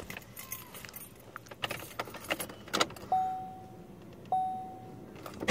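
Car keys jangling and clicking against the ignition lock as the key is worked in and turned. Then the car's dashboard warning chime sounds twice, about a second apart, each a single clear tone that fades away.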